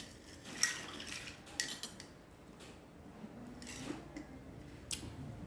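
Metal spoon stirring lime juice in a glass mug: a few faint, scattered clinks and scrapes against the glass.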